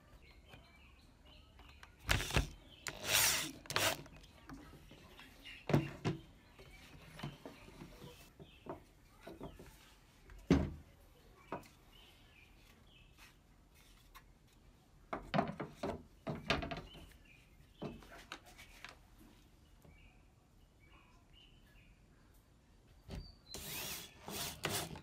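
Electric drill running in short bursts, driving screws and drilling into thin wooden slats, with the loose wooden strips knocking and rubbing on the workbench between bursts. The longest drill run comes near the end.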